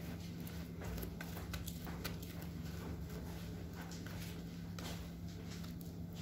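Silicone spatula scraping cake batter out of a glass mixing bowl, making a run of soft, irregular clicks and scrapes against the glass, over a steady low hum.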